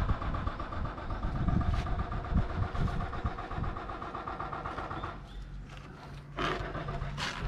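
A motor engine running steadily with an even pulse, its sound dropping away about five seconds in.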